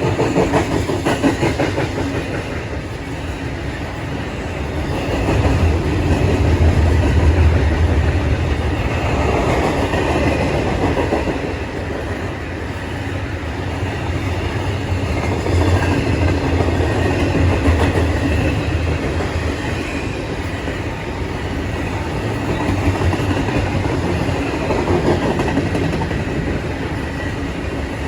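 A train rolling past: a steady rumble of steel wheels on the rails, with a rapid clatter, swelling and easing several times as the cars go by.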